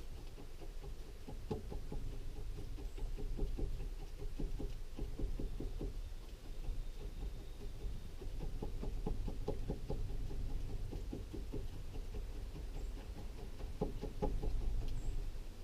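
Plastic spray bottle trigger pumped in quick bursts, a few clicks a second, with short pauses between bursts, over a low steady rumble.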